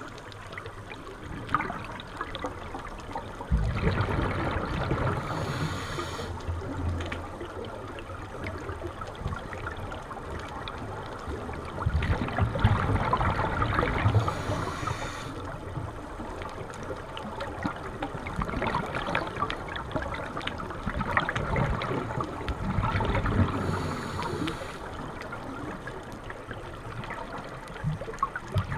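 Muffled underwater rushing and bubbling picked up by a camera in a housing during a scuba dive, swelling about three times with louder bursts of exhaled regulator bubbles.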